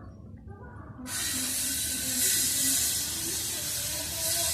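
A steady, loud hiss that starts abruptly about a second in and holds, like rushing or spraying water.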